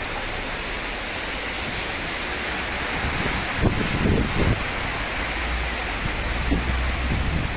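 Heavy rain pouring steadily, a continuous hiss, with a few low thumps about halfway through.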